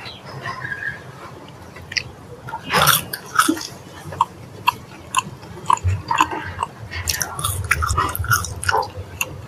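Close-up eating sounds of crispy fried food, French fries and fried chicken: crunchy bites, chewing and wet mouth clicks, with one loud crunch about three seconds in.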